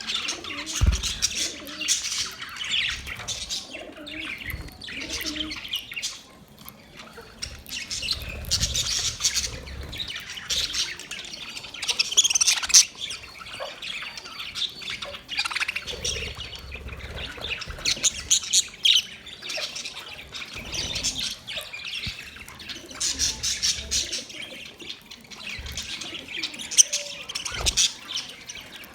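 Parrots chirping and squawking in repeated short bouts of sharp, high-pitched calls.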